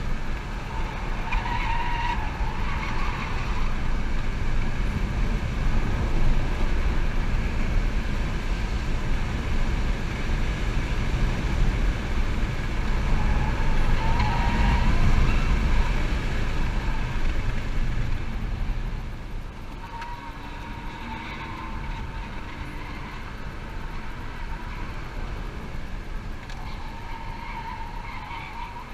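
Road and wind noise inside the cabin of a 2011 Chevy Volt driven hard on a track, with the tyres squealing in corners several times. The noise drops about two-thirds of the way through as the car slows.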